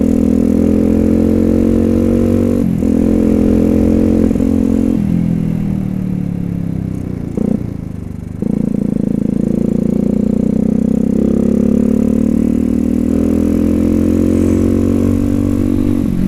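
Bored-up Suzuki Satria FU's 150 cc single-cylinder four-stroke engine under way, heard from the rider's seat. Its revs rise and fall, with short breaks about three and four seconds in and a dip near the middle, after which it pulls up again.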